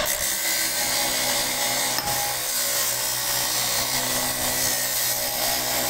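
Electric cut-off saw on a lever-arm stand, its abrasive wheel grinding through a curved steel plate, giving a steady loud grinding noise over the hum of the motor.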